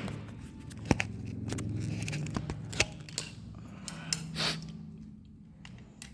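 Sharp clicks and small knocks and scrapes of hands working on an electric drill's parts to get at its carbon brushes, with two louder clicks about a second in and near three seconds in.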